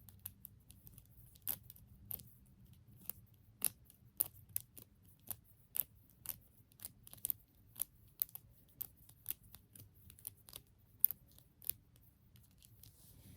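Snake fidget toy being twisted in the hands, its segments giving a run of light, irregular clicks, about two or three a second.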